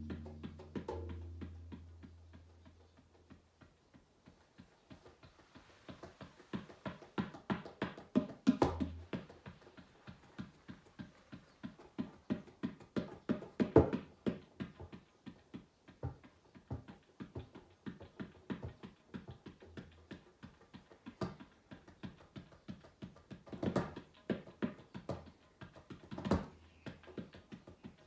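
Tabla played by hand: a loose run of quick, light finger strokes, with a deep ringing bass-drum tone that fades over the first few seconds and sounds again briefly about nine seconds in.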